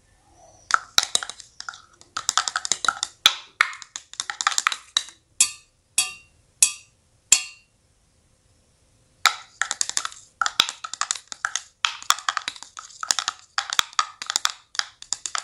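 Dry, sharp percussive clicks like a wood block, in fast runs of several a second, with a few single knocks and a short pause partway through.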